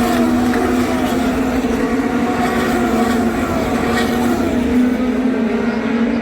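IndyCar race cars' twin-turbo V6 engines running at speed around the oval, heard as a steady, loud, multi-pitched drone of several engines at once, their pitches wavering slightly as the cars lap.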